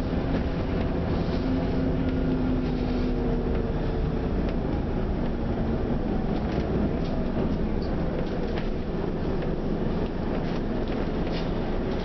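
Scania OmniCity double-decker bus heard from inside the lower saloon: a steady low diesel rumble and road noise, with a whine that eases slightly down in pitch over the first few seconds and a few light rattles from the body.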